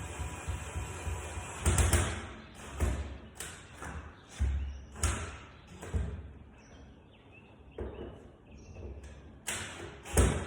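Metal lever door-handle hardware being pushed and seated onto a door: a series of irregular knocks and thumps with scraping and rattling between them, the loudest thump near the end.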